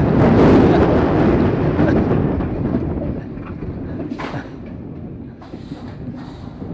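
Roller coaster train rumbling along its track, loudest in the first two seconds, then easing off.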